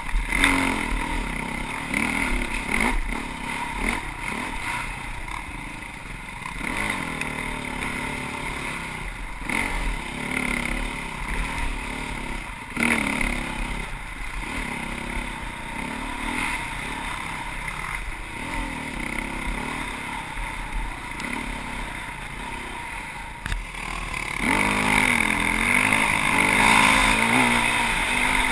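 Off-road motorcycle engine revving up and down over and over through gear changes and throttle blips, with a few sharp knocks from the rough trail. About three-quarters of the way through it gets louder and holds higher revs.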